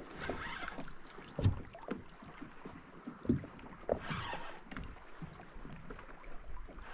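Water lapping and splashing against a kayak hull, with a few short dull thumps from the boat.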